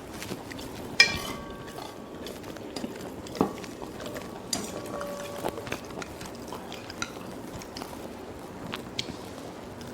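Cutlery clinking against a plate while eating, with scattered small clicks and one sharp clink about a second in that rings briefly.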